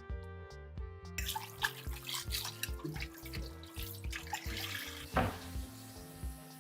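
Background music with a steady beat; about a second in, running water starts and continues under it, with scattered small clicks.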